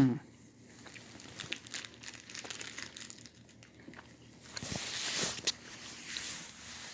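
Crinkling and rustling of plastic candy packaging being handled, with scattered small clicks. The rustling grows louder for a couple of seconds about five seconds in.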